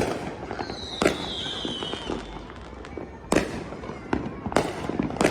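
Fireworks going off: several sharp bangs over constant crackling, with a high whistling firework screaming for about a second and a half, dropping slightly in pitch.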